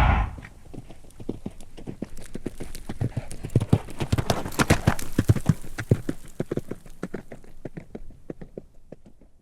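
Horse hooves clopping in a quick run of hoofbeats, growing louder toward the middle and fading away near the end.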